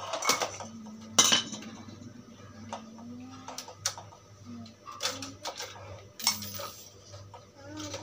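Bamboo bird cage being taken apart by hand at its base: a string of sharp clicks, clinks and knocks as parts are worked loose, the loudest just over a second in.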